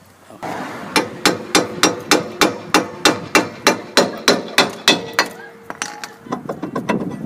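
Hammer striking the rusted rear brake drum of a 2003 Honda Civic SI to knock it loose from the hub: a run of about fourteen quick, even blows, some three a second. The drum rings after each blow, and the ring hangs on briefly when the blows stop. A few lighter metal clanks follow as the drum is worked free.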